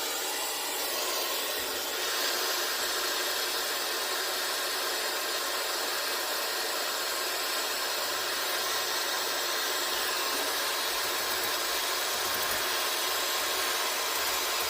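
Gas brazing torch flame burning with a steady hiss, growing a little stronger over the first two seconds and then holding even.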